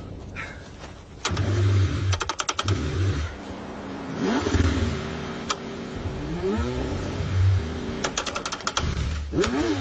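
A car engine cranked over and over in freezing cold, with fast clicking runs from the starter. Between the cranking spells it briefly catches with short rising revs. This is a hard cold start.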